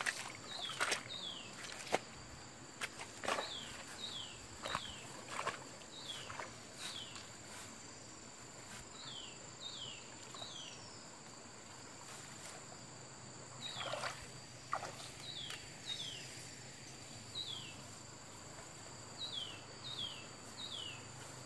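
Insects buzzing steadily at a high pitch, with short falling chirps in twos and threes every few seconds from a bird, and footsteps rustling through grass and undergrowth.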